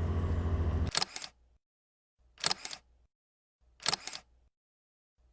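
Camera shutter clicks, each a quick double click, repeating about every one and a half seconds with dead silence between them, three times in a row. Before them a steady low hum cuts off abruptly about a second in.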